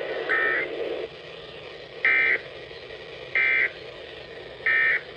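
Emergency Alert System end-of-message data bursts: four short, buzzy two-tone digital chirps, each about a third of a second long and spaced roughly 1.3 to 1.8 s apart, over a faint steady hiss. They are the signal that closes an alert.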